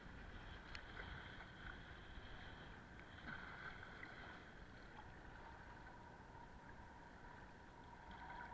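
Faint, steady water sound around a paddled kayak, with a few small splashes or knocks.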